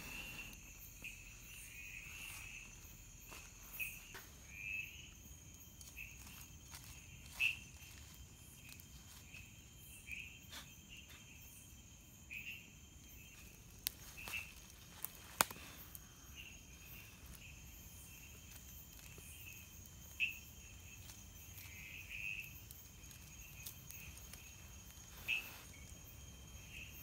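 Night insects, crickets among them, trilling steadily in a high drone, with short louder chirps every second or two. A couple of sharp clicks stand out around the middle.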